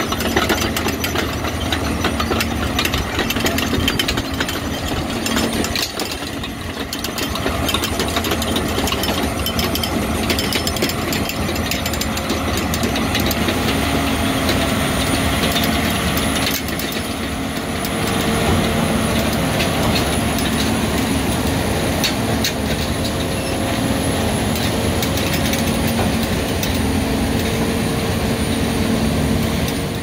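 Custom-built Vogel self-propelled squash harvester running: a steady engine drone under the continuous rattling clatter of its rod-chain conveyors.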